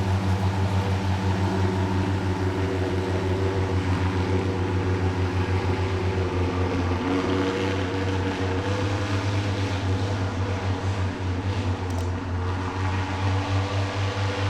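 BMW R1200GSA boxer-twin motorcycle engine idling steadily, with an even fast pulsing beat.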